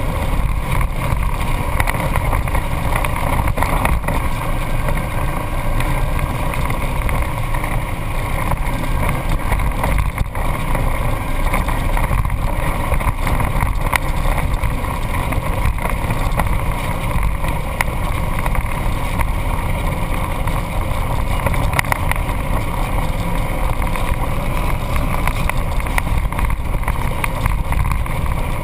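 Off-road vehicle driving along a rough dirt trail, heard from a hood-mounted camera: a loud, steady rumble of engine and rushing air, with scattered knocks and rattles from bumps in the track.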